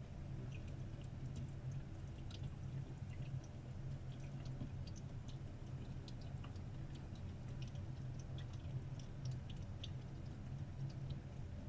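Water leaking inside a wall: faint, irregular dripping and ticking over a steady low hum.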